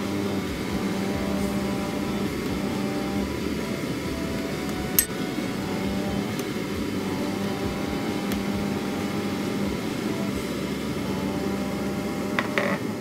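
Oxtail stew boiling hard in a wide pan, a steady noise over a low hum, while foam is skimmed off: a metal skimmer gives a sharp clink about five seconds in and a few clinks against a glass bowl near the end.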